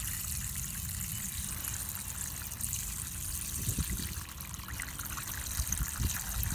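Water trickling and spraying from the blue fill tube at the base of a plastic vacuum chicken waterer as it is filled from the bottom, over a steady low rumble.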